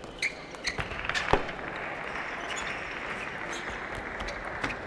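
Table tennis ball clicking off bats and table in a rally, three hits in the first second and a half, the last the loudest; then a steady hiss of crowd noise.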